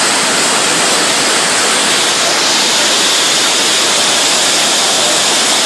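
Loud, steady rush of fast-flowing flash-flood water, a continuous churning noise with no breaks.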